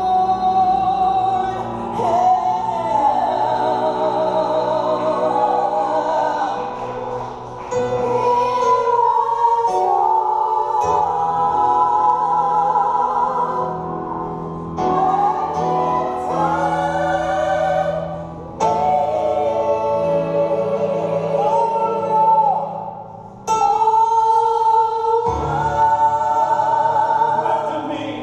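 Live worship music: a singer's sung phrases, with long held notes and vibrato, over a steady band accompaniment, with short breaks between phrases.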